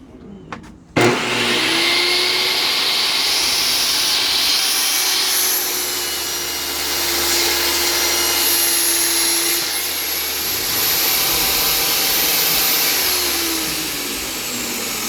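Table saw switching on suddenly about a second in and running loud with a high whine while it cuts a board; near the end the blade starts to wind down, its pitch falling.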